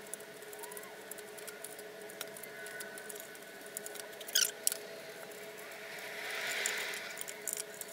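Hobby knife scratching and cutting into foam board, with small crackles and clicks as the blade works through the foam and two brief squeaks about four and a half seconds in.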